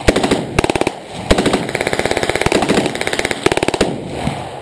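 Automatic rifle firing in full-auto bursts: two short bursts, then a long burst of about a second and a half, and a last short burst near the end.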